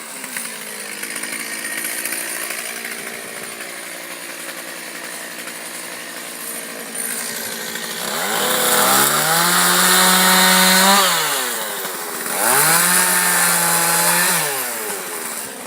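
Two-stroke chainsaw idling, then revved up hard twice, about eight seconds in and again about twelve seconds in, each time held for two or three seconds before dropping back.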